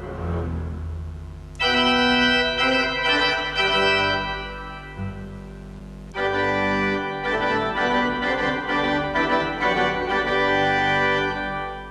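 Pipe organ playing full, sustained chords: after a quieter low passage, a loud chord comes in suddenly about one and a half seconds in and fades, then a second loud passage enters about six seconds in and holds until near the end.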